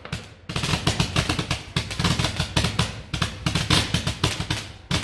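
Consumer fireworks cake firing a rapid string of bangs and crackles, several a second. It starts about half a second in and cuts off just before the end.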